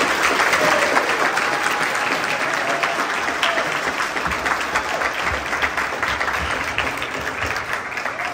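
Audience applauding: many people clapping together, starting strong and easing off a little toward the end, with a few faint voices among the claps.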